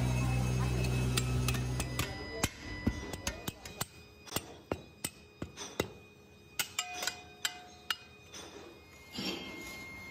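Hand rammer packing moulding sand into a steel casting flask: a string of sharp knocks at an uneven pace, roughly two a second. Near the end come two softer scraping sweeps. A low steady hum stops about two seconds in.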